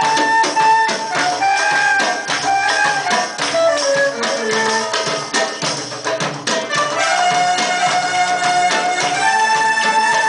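Live Arabic music for belly dance: a melody line over a steady beat of hand-percussion strikes, from a small ensemble with qanun and keyboard. The tune steps down in pitch over the first few seconds, then settles on held notes.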